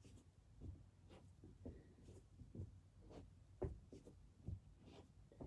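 Near silence, with faint soft rustles and light taps about every half second from a person's hands, feet and body shifting on an exercise mat during slow push-ups.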